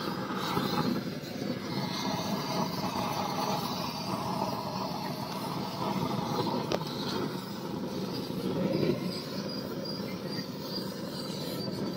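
Gas blowtorch burning with a steady roar as its flame is played over a whole turmeric-coated chicken to singe the skin.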